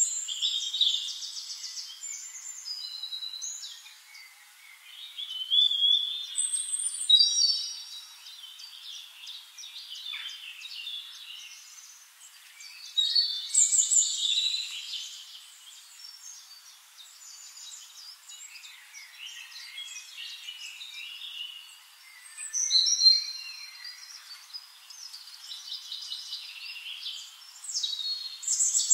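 Wild birds singing: bursts of high chirps and short trills every several seconds, with quieter chirping in between.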